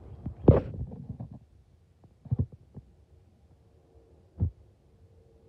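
Low, muffled thumps on the phone's microphone: a loud cluster about half a second in, a few more around two and a half seconds, and a single one near four and a half seconds. A faint steady hum lies underneath.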